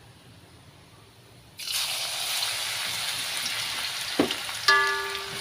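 Minced garlic hitting hot oil in a wok (kuali) and sizzling, starting suddenly about a second and a half in and carrying on steadily. Near the end there is a knock, then a metal clang that rings briefly.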